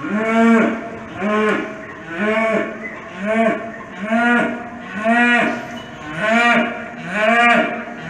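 Cattle mooing in an even run of eight short calls about a second apart, each rising and then falling in pitch.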